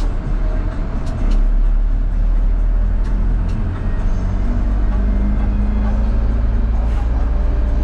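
A bus's engine and road noise heard on board while it drives: a steady, loud low rumble, with a few short rattling clicks.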